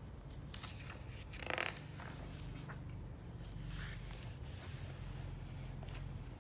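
Paper pages of a book being turned and smoothed by hand, a few short rustles, the loudest about one and a half seconds in.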